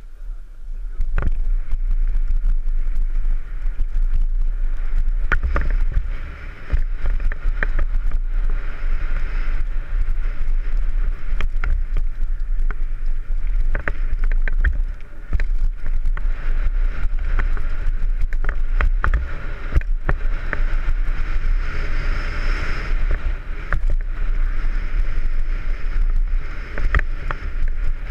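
Downhill mountain bike ridden fast over rough dirt and rocks, heard from a helmet-mounted camera: steady wind noise on the microphone with frequent sharp knocks and rattles from the bike and tyres hitting the ground.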